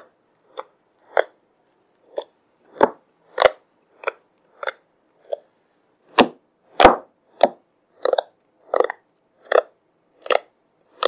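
Freshly activated fluffy slime, made from PVA glue, shaving foam and borax solution, being kneaded and squeezed by hand: a run of short squishing sounds, about two a second, loudest a little past halfway.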